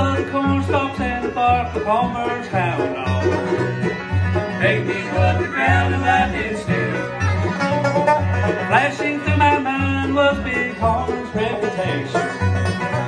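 Live bluegrass band playing: five-string banjo, acoustic guitar, mandolin and fiddle over an upright bass plucking a steady, even beat.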